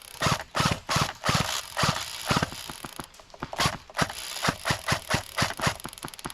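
Footsteps of a person running on outdoor ground, about two to three strides a second.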